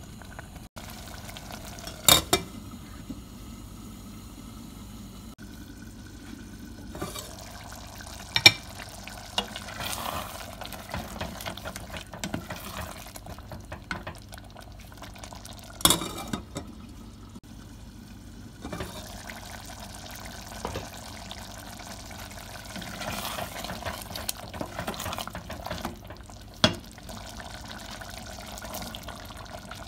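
Wooden spoon stirring chunks of chicken in a simmering tomato sauce in a stainless steel pot, a wet, sloshing stir with four sharp knocks spread through it.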